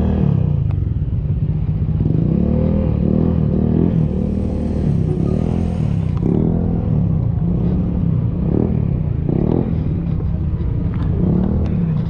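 Motorcycle engines running and revving as motorcycles ride past on a rough street, their pitch rising and falling, with a few light knocks near the end.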